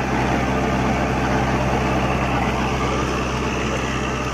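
Kubota MU4501's four-cylinder diesel engine running steadily under load at about 2000 RPM, driving a six-foot Shaktiman rotavator through the 540 PTO as its blades churn the soil.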